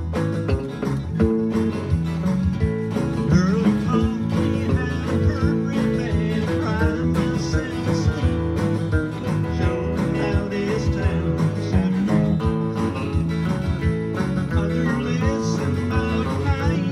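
Several guitars strumming a country-style song together, with a man's voice singing lead from a few seconds in.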